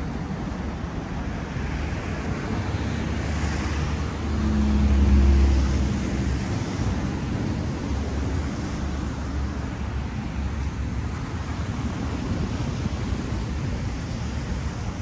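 Road traffic: a steady hum of passing vehicles, with one louder vehicle going by about four to six seconds in, its low engine rumble swelling and fading.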